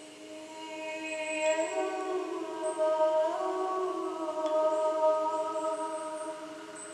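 A woman's voice sustaining a long wordless sung tone in sound-healing toning, swelling in the middle, stepping up in pitch twice and fading near the end.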